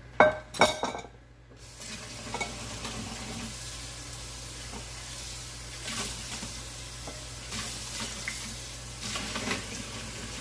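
Two quick knocks of a dish, then a kitchen faucet running steadily into the sink as a dish is rinsed out.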